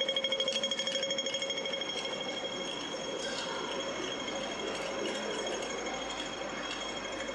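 Rapid, even electronic ticking at a fixed pitch over street noise. It fades somewhat in the middle and grows stronger again near the end.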